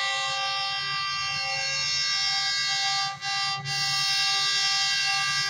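Diesel locomotive's horn (GEU-40 locomotive) sounding one long, steady blast of several tones together, broken twice for an instant about three seconds in.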